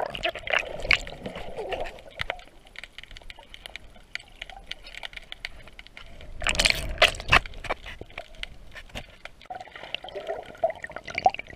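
Underwater sound picked up by a submerged camera: muffled water gurgling and bubbling, scattered with many sharp clicks, with a louder rushing surge of water about six and a half seconds in.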